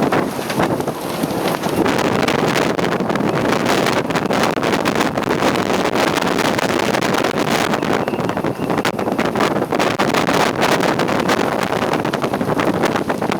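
Strong wind of over 30 knots buffeting the microphone aboard a sailing yacht: a loud, steady rush broken by many crackling gusts.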